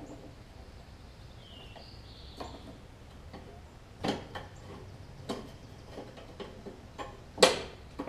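Scattered small metallic clicks and taps as a bolt and nut are fiddled into place by hand on a push mower, with the sharpest click near the end.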